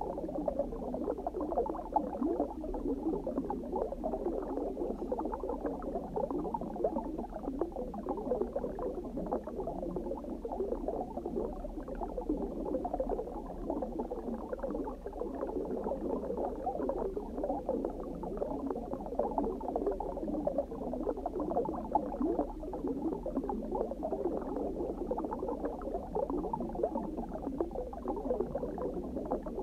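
Continuous underwater water ambience: steady muffled bubbling and gurgling, with a fine crackle of small bubbles and almost nothing in the high end.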